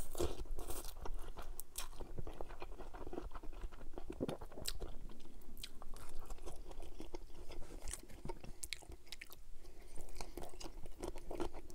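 Close-miked eating of soft noodles and stir-fried vegetables: chewing with many small wet mouth clicks and smacks, and a little crunch.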